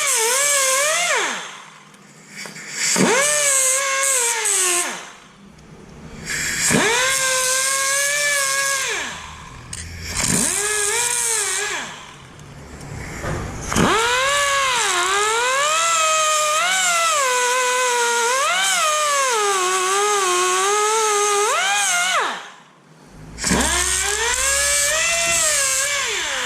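Handheld power tool whining in six runs of the trigger, one of them long, its pitch sagging and swinging up and down during each run and winding down at the end.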